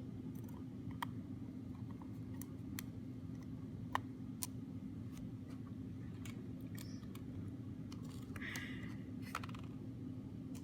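Small, scattered clicks and ticks of a magnetic precision screwdriver and tiny screws being driven back into a 5th-generation iPod, with a short scrape near the end, over a steady low hum.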